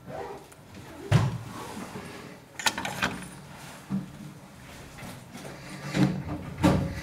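Classroom bustle at the end of a lesson: about five knocks and thumps from furniture and belongings being moved, the loudest about a second in.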